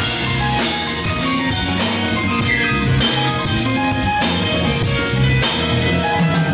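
A live band playing an upbeat number: drum kit and congas keep a steady beat under electric guitar and keyboard.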